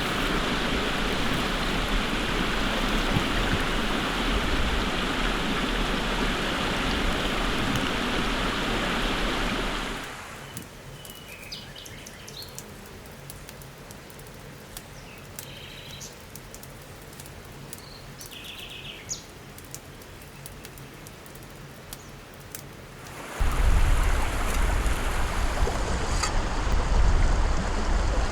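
Steady rushing noise that drops away about ten seconds in, leaving a quieter stretch with a few faint bird chirps and small clicks. A loud rushing noise with a heavy low rumble comes back about two-thirds of the way through.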